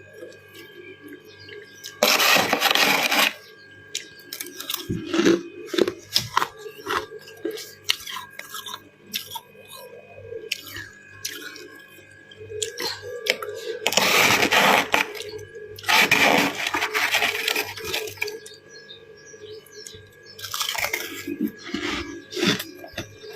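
Close-miked crunching and chewing of freezer frost and ice: four loud crunching bursts, each lasting a second or so, with small crackles and clicks between them.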